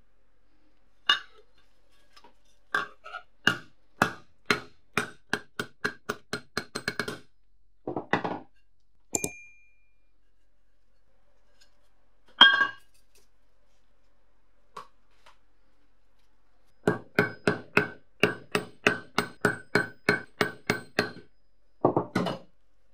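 Hammer striking thin sheet-metal charger case parts against a steel bench block, most likely to flatten and straighten them. The strikes come in two main runs of quick taps, up to about three a second, each with a short metallic ring, and a long pause between the runs.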